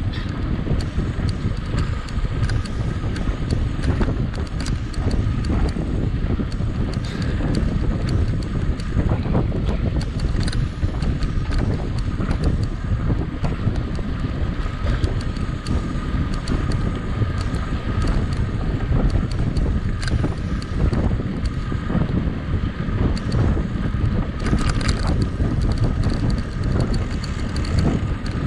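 Wind buffeting the camera microphone on a mountain bike being ridden in a race, a steady low rumble with frequent sharp clicks and rattles from the bike over rough ground.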